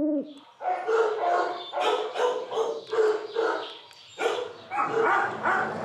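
Dog barking in a kennel, a quick run of short barks about two to three a second, breaking off briefly near the middle and then starting again.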